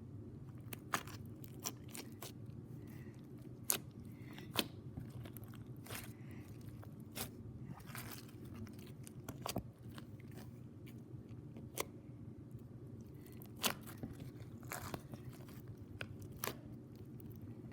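Slime being played with by hand, giving irregular sharp clicks and pops about every second or two over a steady low hum.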